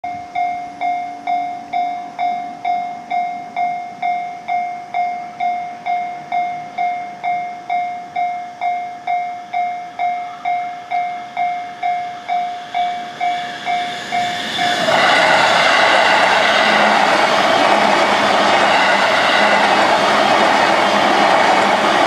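Japanese level-crossing warning bell ringing in even electronic dings, about two a second. About 15 s in, an E233 series electric train passes close by, and the loud steady rush of its wheels on the rails drowns out the bell.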